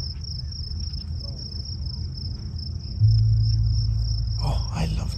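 Crickets chirping in a steady, rapidly pulsing high chorus. About three seconds in, a low steady rumble joins and becomes the loudest sound.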